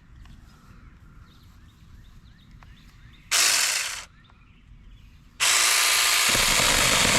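Saker mini cordless electric chainsaw: a short trigger blip a little over three seconds in that winds down, then the motor runs steadily from about five seconds on, with a deeper sound joining near the end as the chain bites into a wet branch. Faint bird chirps before it starts.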